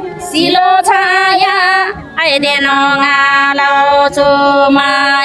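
A woman singing a Tamang selo juhari verse in long, held notes: a short phrase, a brief breath about two seconds in, then a longer phrase.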